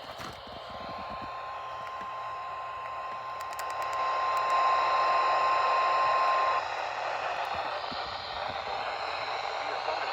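Radio static with a steady single-pitch alert tone near 1 kHz, the weather-radio warning alarm tone that opens an EAS alert. The tone grows louder a few seconds in and cuts off about six and a half seconds in, leaving the static.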